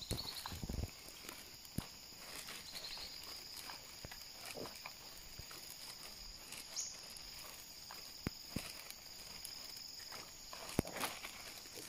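Steady high-pitched insect chorus, with scattered footsteps on a wet paved path.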